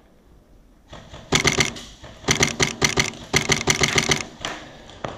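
Wolverine MTW HPA airsoft rifle firing several short bursts of rapid, sharp shots, about ten a second.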